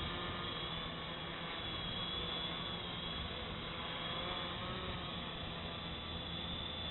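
Electric multirotor (HoverThings HT-450 frame) hovering in loiter mode: a steady buzz of its motors and propellers with a high whine that wavers slightly in pitch as it holds position against the wind.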